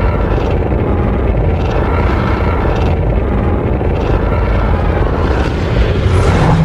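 Loud, deep rumbling monster-movie sound effect with a slow swell about once a second, growing louder near the end.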